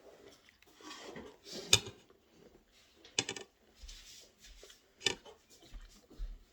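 Cutlery clinking and scraping on a plate during a meal, with three sharp clinks spaced out across the few seconds and quieter scraping between them.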